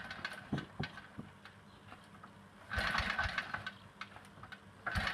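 Vintage NSU motorcycle engine running at a low idle, with two louder bursts of throttle about three and five seconds in.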